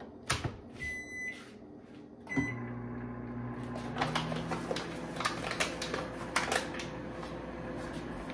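Microwave oven being started: a knock, a high keypad beep and a second short beep, then the oven begins running with a steady low hum and a few clicks and knocks over it.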